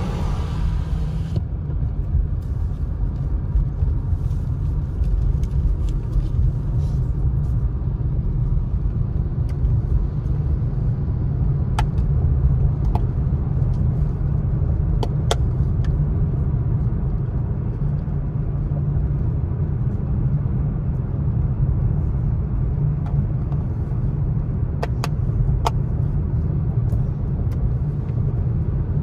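Steady low rumble of a car's engine and tyres, heard from inside the cabin while driving on a wet road. A few short, sharp clicks come scattered through it.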